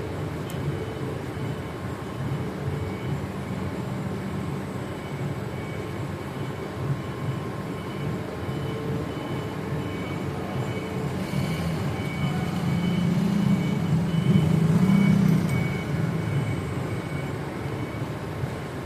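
A steady low mechanical rumble with faint steady tones above it, growing louder about two-thirds through and then easing back.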